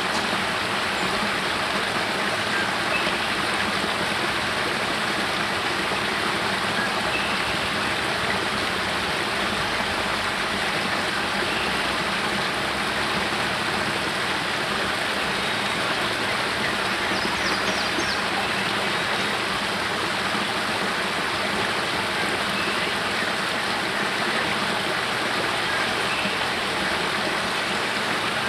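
Spring water pouring steadily down a small rocky cascade and splashing into a pool, an even, unbroken rush.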